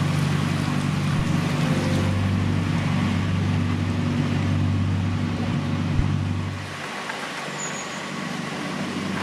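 Narrowboat engine running steadily at cruising speed, a low chugging hum under a steady hiss. About seven seconds in, the engine note drops away and a quieter hiss is left.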